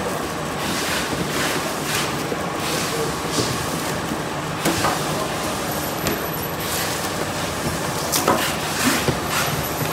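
UGP-7050 BS two-axis servo packaging machine running steadily, with a repeated clack as it cycles and a few sharper knocks near the end.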